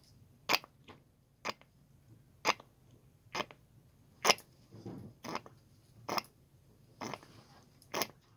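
Engine oil glugging out of an upturned plastic bottle into a small generator's oil filler, refilling the crankcase after an oil change. Air gulps back into the bottle in short, sharp glugs about once a second.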